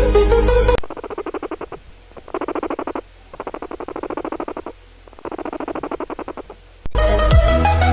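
Guinea pig calling in four bouts of rapid pulsing, each lasting about a second with short pauses between them, with background music breaking off just before and starting again near the end.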